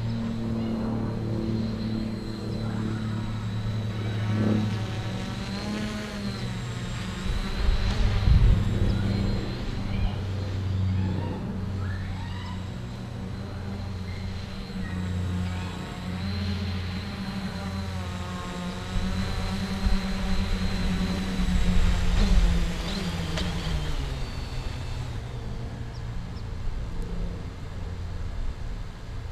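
Quadcopter's electric motors and propellers buzzing in flight, the pitch wavering as the throttle is worked, dropping about twenty-four seconds in as it comes down to land. Gusts of wind rumble on the microphone about eight and twenty-two seconds in.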